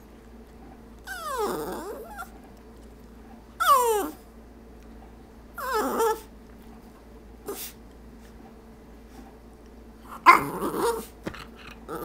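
Schipperke dog 'talking': four drawn-out whining yowls a couple of seconds apart, most sliding down in pitch, with a short faint one between.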